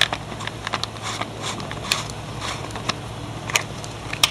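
Scattered light clicks and taps from an orange plastic measuring spoon and containers being handled while sodium hydroxide is measured out. A steady low hum runs underneath.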